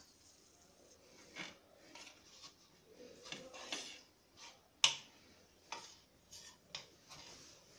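Knife cutting through soft kalakand and tapping and scraping against the plate beneath: a string of faint, irregular clicks, the sharpest about five seconds in.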